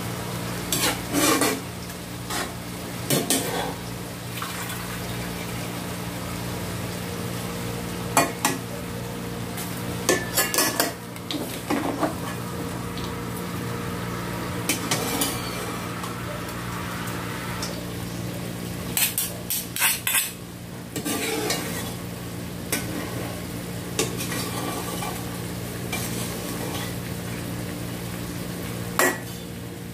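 Scattered clinks and knocks of utensils against a stainless steel cooking pot as seasonings are added to bamboo-shoot strips, in short clusters every few seconds over a steady low hum.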